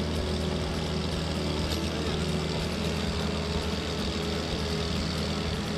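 Boat's diesel engine running steadily, a low even hum with no change in speed.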